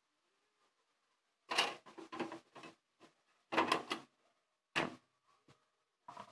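Handling noise from tidying a bathroom counter: a few short clatters and rustles about a second and a half in and again around three and a half seconds, with a sharper knock near five seconds and a brief rustle at the end as a towel is handled.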